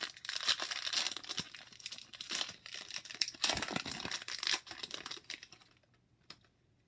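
Foil trading-card pack being torn open, the wrapper crinkling and rustling in quick sharp bursts, stopping about six seconds in.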